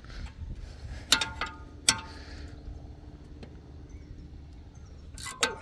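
Metal hand tools clinking while the nut on a drop link is worked loose with a spanner and Torx bit. There are two sharp, ringing metallic clinks about a second in, a second apart, and another near the end.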